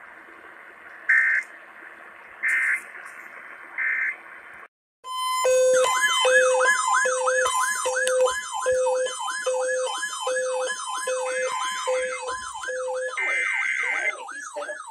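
Three short bursts of Emergency Alert System digital data tones over a hissy broadcast, each about a third of a second and evenly spaced: the end-of-message code closing the warning. After a brief dropout, an electronic siren starts: a rapid rising whoop repeated about two and a half times a second, layered with a steady tone and pulsing low beeps.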